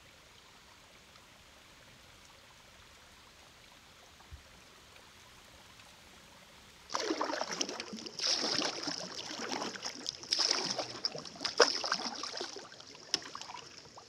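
Near silence for about seven seconds, then water suddenly splashing and trickling, loud and uneven.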